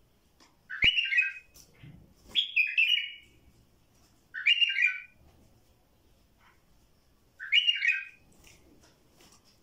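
Bulbul calling: four short call phrases of about half a second each, a couple of seconds apart, with a sharp click just under a second in.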